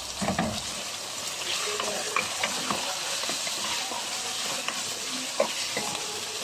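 Chopped vegetables sizzling in oil in a nonstick pot, with a steady hiss. A wooden spatula stirs them, knocking and scraping against the pan every so often.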